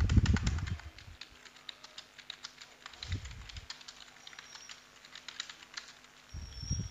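Typing on a computer keyboard: a rapid, uneven run of keystroke clicks. It is broken by three short low sounds, the loudest at the start, another about three seconds in and one near the end.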